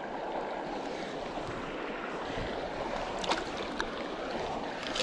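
Steady rush of shallow river current around a wading angler's legs, with a few small sharp splashes about three seconds in as a brown trout is let go from the hand.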